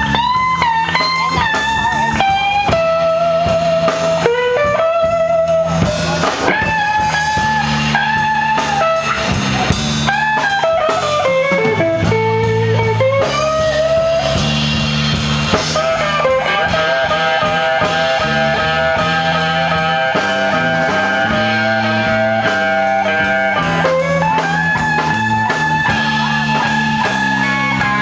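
Blues band playing an instrumental break: an electric guitar plays lead lines with bent notes over a walking bass and a drum kit.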